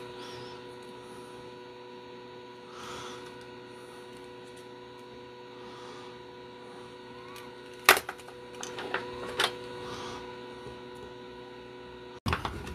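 Steady electrical mains hum during bench soldering work on a battery circuit board, with a few sharp clicks and taps of tools being handled about eight seconds in and again near nine and a half seconds. The sound breaks off suddenly near the end into louder handling noise.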